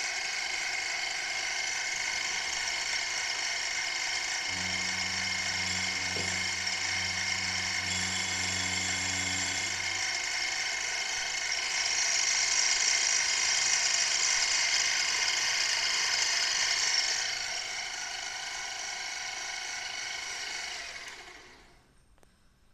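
Small milling machine running, its spindle whining steadily while an end mill cuts into a stepper motor. A lower hum comes in for a few seconds in the first half. The whine grows louder for several seconds after the middle, drops back, then winds down and stops near the end.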